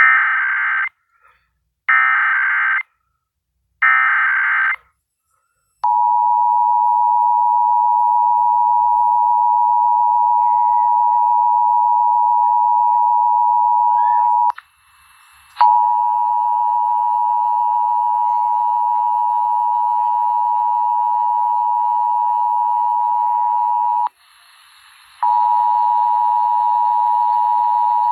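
Emergency Alert System test: three short, screeching SAME data bursts about two seconds apart, then the steady two-tone EAS attention signal. The attention signal breaks off twice for about a second and resumes.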